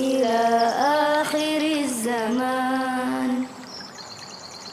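A high singing voice drawing out the closing line of a sung Arabic prayer in long, ornamented held notes, stopping about three and a half seconds in. After that, quieter background noise with a faint, quick high chirping.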